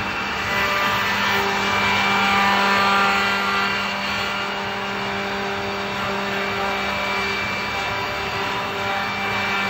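Andreoni Standard 12 multi-spindle copy-milling machine (woodworking pantograph) running: the spindle motors hum and whine steadily while the cutters rout wooden blanks. The noise swells a little a couple of seconds in.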